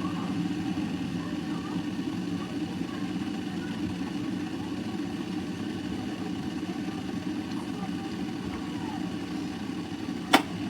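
Stainless steel electric kettle heating water toward the boil: a steady, even boiling rumble, with one sharp click near the end.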